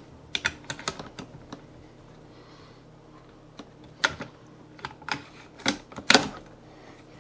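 Bolt of a .30-06 Savage bolt-action rifle being slid back into the action and worked, giving sharp metal clicks. There is a quick run of clicks in the first second and a half, then after a pause several single clicks about a second apart, the loudest near the end.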